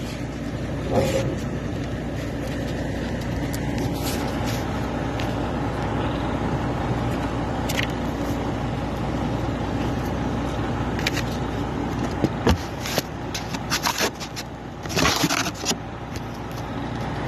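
Heavy machine's diesel engine running steadily at constant speed. Near the end come a series of sharp clicks and a short stretch of rubbing and scraping.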